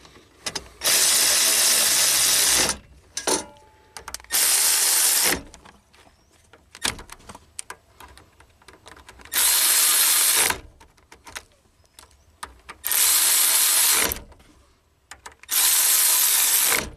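Small cordless power tool with a socket spinning nuts down onto a hybrid battery bus bar, in five short runs of about a second each, with light clicks of the socket and nuts between runs.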